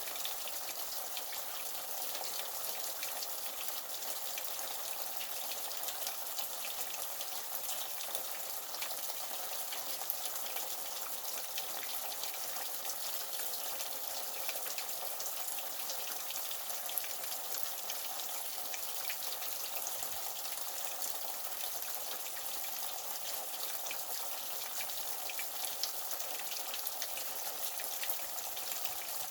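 Running water splashing steadily, a dense patter of fine droplets that sounds like rain, with now and then a slightly louder drip.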